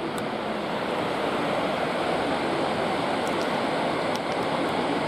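Steady rush of sea water and wind as heard from a ship's balcony.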